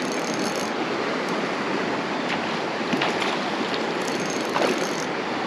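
Steady rush of creek water flowing over a shallow riffle.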